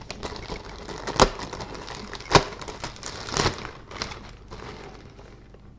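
Plastic model-kit sprues and their plastic bag being handled: a low rustling with three sharp clicks about a second apart near the middle, dying down toward the end.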